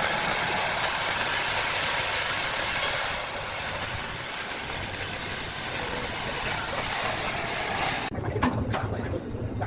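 A machine with a motor or engine runs with a loud, dense noise that thins a little about three seconds in. It cuts off abruptly near the end, leaving a low hum and a few sharp knocks.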